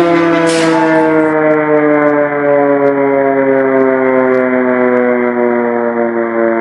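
Civil defense air-raid siren sounding one long, loud tone that slowly falls in pitch, with a brief hiss about half a second in.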